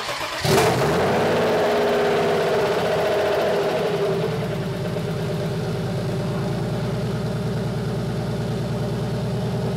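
Turbocharged BMW M50 straight-six catching and running. It is louder and higher for about the first four seconds, then settles to a steady idle.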